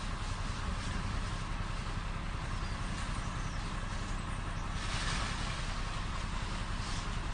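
Steady background noise: a low rumble under a continuous hiss, with a brief louder hiss about five seconds in.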